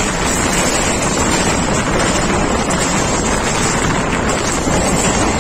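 Wind rushing over the microphone held out of a moving passenger train, over the steady running rumble of the train. The noise is loud and even, without breaks.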